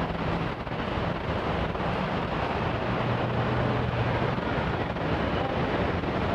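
Steady rumbling station ambience with a low hum that strengthens in the middle.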